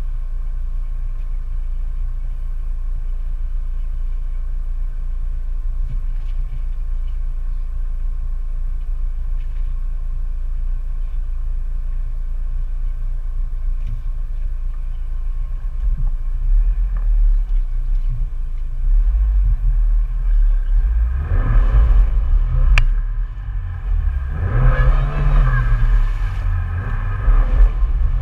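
Off-road 4x4's engine idling with a steady low rumble, then revving and running under load from about three-quarters of the way through as the vehicle drives off.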